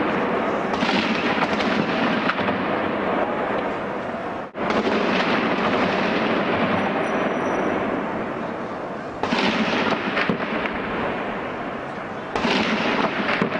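Dense, continuous crackling and banging from a street clash, with the noise of a crowd beneath it. The din drops out abruptly about a third of the way in and shifts twice more near the end.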